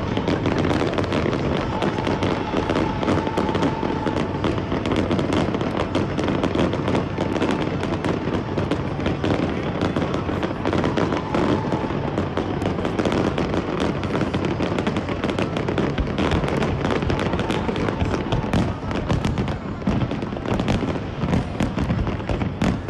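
Aerial fireworks shells bursting in a dense, unbroken barrage: rapid overlapping bangs and crackling with no let-up.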